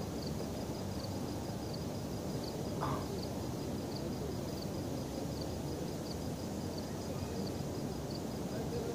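Night-time outdoor ambience: a steady low rumble, with an insect trilling high and even, pulsing about every 0.7 seconds. A short faint sound comes about three seconds in.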